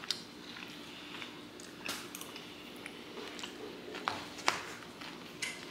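Quiet eating: a few light, sharp clicks of a metal fork against a takeout poke bowl over a faint steady hum.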